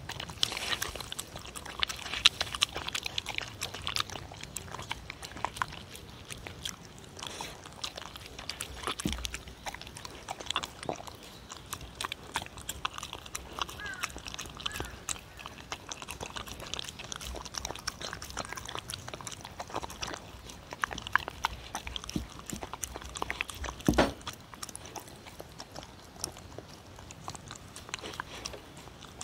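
A dog eating from a wooden bowl close to the microphone: steady wet chewing and biting with many small clicks and crackles. One louder knock comes late on.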